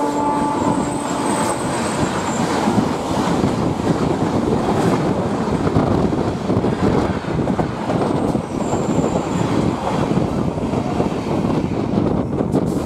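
An express train of LHB coaches rushing past at speed on the next track, heard from another moving train: a loud, continuous rattle and rush of wheels and coaches with a faint high wheel squeal. The tail end of a train horn blast sounds in the first second or so.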